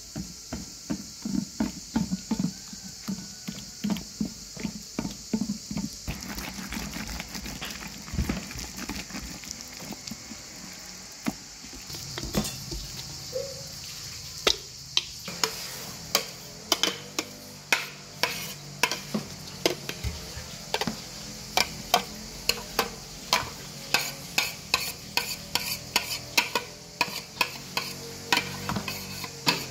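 Kitchen food-prep sounds: soft low knocks at first, then, from about halfway, an electric meat grinder running with a steady low hum and sharp clicks about twice a second as it pushes yellow fruit pulp out into a pot.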